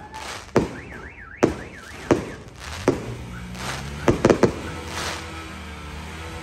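Aerial fireworks shells going off in sharp bangs about a second apart, then a quick cluster of four reports about four seconds in. A car alarm warbles up and down during the first couple of seconds, and a low steady hum comes in about halfway.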